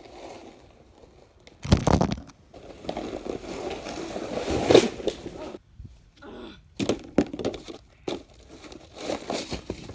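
A broken plastic trash can lid used as a sled, scraping and crunching over snow in uneven runs, with several sharp knocks and bumps. The longest scrape builds for about three seconds before stopping.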